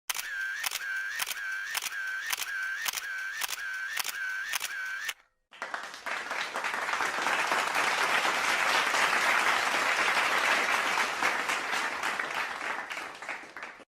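A rapid series of camera shutter clicks, about two a second for five seconds. Then, after a short gap, a crowd applauding, which swells and fades out near the end.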